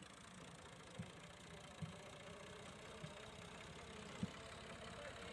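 Diesel tractor engine running at idle, faint and steady, with four dull low thumps about a second apart, the last the loudest.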